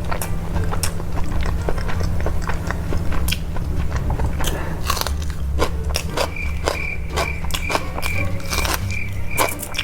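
Close-miked eating: a person biting and chewing food, with many small crackling clicks at an irregular pace.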